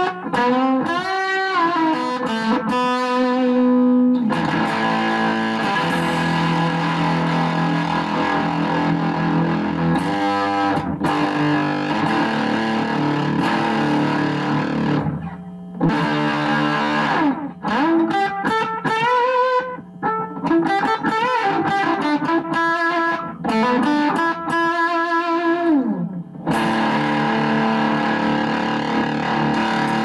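Electric guitar played through a homebuilt Harmonic Percolator fuzz pedal into an amplifier, sounding distorted. Bent single notes come near the start and again in the second half, with long held chords between and at the end, and two short breaks.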